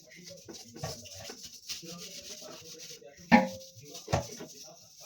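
Scrubbing and rubbing on a fridge surface while cleaning it, with a few hard knocks of objects handled or set down. The loudest knock comes a little past the middle and rings briefly.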